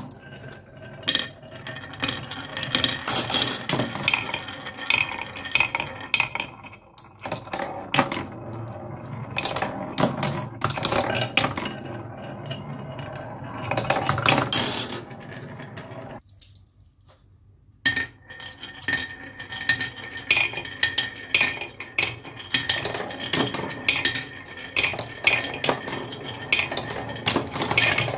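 Marbles rolling and clattering through a wooden marble run, with many quick clicks and knocks as they circle a wooden funnel dish, drop through holes and hit the wooden track pieces. The clatter breaks off for about a second and a half about two-thirds of the way through, then resumes.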